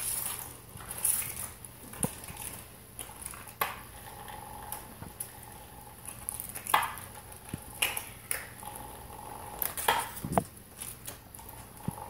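A cat batting and nosing a small plastic toy on a hard floor: irregular clicks, taps and scrapes of the toy and paws on the floor, with a heavier knock about ten seconds in.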